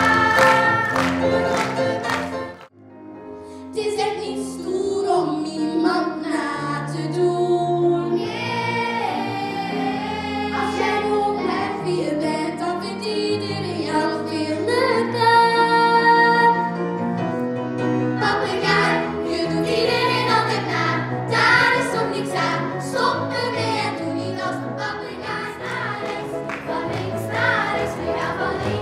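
Group of children singing a pop song as a choir over instrumental accompaniment, with a brief break about three seconds in before the singing resumes.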